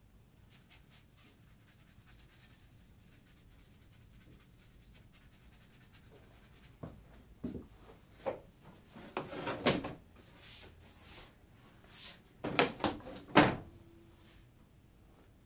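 Wooden drawing board being handled and turned on the table: a run of knocks and short scrapes of wood, starting about seven seconds in and ending with a louder knock near the end.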